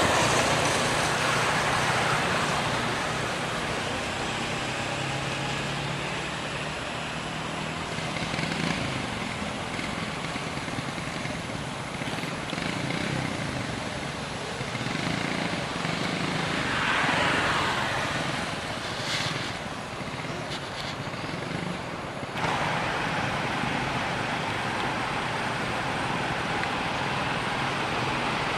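Outdoor background of traffic noise: a steady motor-vehicle hum that swells as a vehicle passes about two-thirds of the way through. The background changes abruptly a few seconds before the end.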